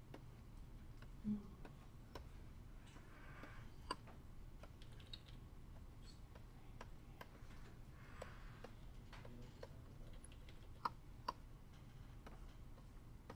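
Faint, irregular clicks and taps from a computer keyboard and a Wacom pen on its tablet, during digital painting. There are two soft scratchy strokes of about a second each, a few seconds in and again past the middle, and a low thump about a second in.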